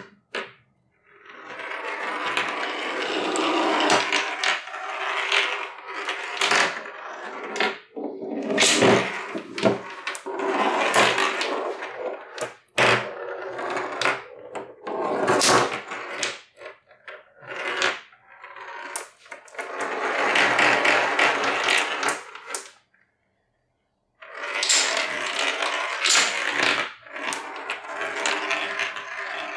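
Marbles rolling along wooden plank tracks of a chain-reaction machine, in long stretches of rolling broken by sharp clacks of marbles, wooden blocks and dominoes knocking and toppling. A gap of about a second late on interrupts the run.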